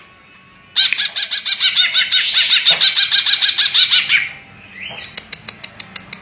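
Cucak ijo (green leafbird) singing a fast, loud run of repeated whistled notes, about eight a second, for roughly three seconds. Near the end comes a series of quick sharp ticks.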